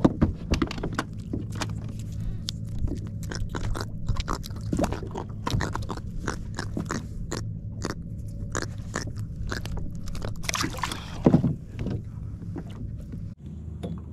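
Irregular clicks, knocks and scrapes of fishing tackle being handled aboard a kayak, with a louder cluster of knocks about eleven seconds in, over a steady low hum.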